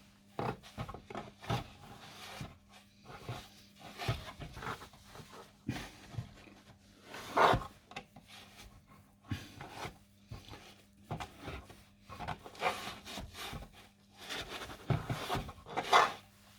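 A cloth rubbing and wiping grime off a wooden Napoleon mantle clock case, in irregular scrubbing strokes with occasional knocks of the wood.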